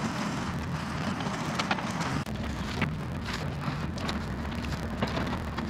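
Yanmar VIO50 mini excavator's diesel engine running at a distance, a steady low rumble, with irregular crackles and snaps over it.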